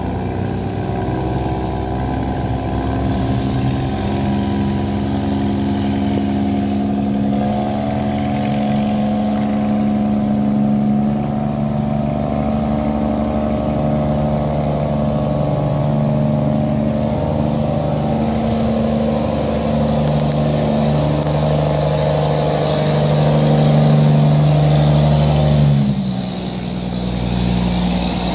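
Motor barge's diesel engine running hard at high revs as the barge passes close by, a loud steady drone of several tones that shift in pitch, rising to its loudest just before it drops off suddenly near the end.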